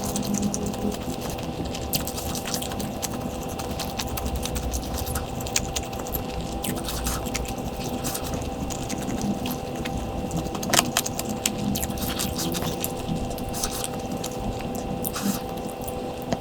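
Close-miked eating sounds: chewing with scattered sharp clicks and scrapes, the loudest click about eleven seconds in, over a steady electrical hum.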